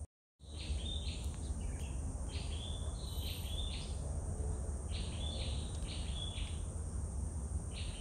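Tropical rainforest ambience: a steady high insect drone with repeated short chirping calls in small groups, over a low rumble. The sound cuts out for a moment just after the start.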